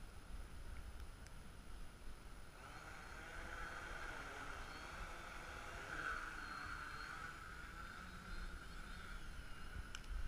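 Drone's motors and propellers whining with a slightly wavering pitch. The whine rises about two and a half seconds in, is strongest around the middle and fades near the end, over low gusts of wind on the microphone.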